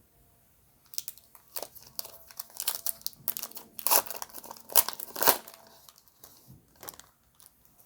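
A trading-card pack wrapper being torn open and crinkled by hand: a run of crackling, loudest in the middle, then a few light rustles as it is set down.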